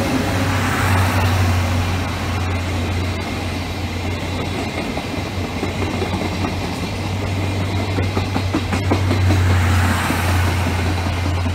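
Train of 14-series passenger coaches behind an EF65 electric locomotive passing through a station: the steady rumble of wheels on rail, with a few sharp clicks over rail joints, over a steady low hum.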